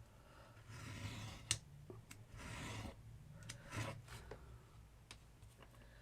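Thin craft chipboard being cut into strips: three short scraping cuts of about half a second each, with a few sharp clicks in between.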